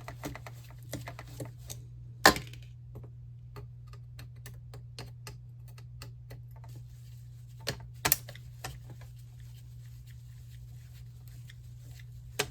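Scattered small clicks and taps of plastic and a circuit board being handled and worked loose from a monitor's plastic front frame, with one sharp loud knock about two seconds in and two more around eight seconds, over a steady low hum.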